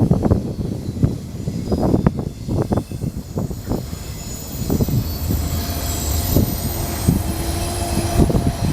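BNSF intermodal freight train rolling past, its steel wheels knocking and clattering over the rail in an irregular run of sharp clacks. A faint high wheel squeal rides above them.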